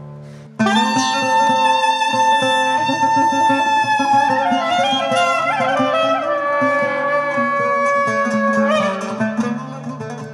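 Soprano saxophone coming in suddenly about half a second in, holding one long high note that bends and then steps down, over plucked lute accompaniment and a steady low drone.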